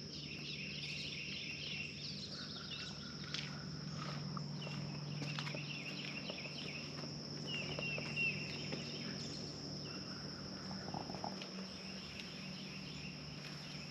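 Morning outdoor ambience: a steady, high insect chorus with birds chirping here and there over it, and a low steady hum underneath.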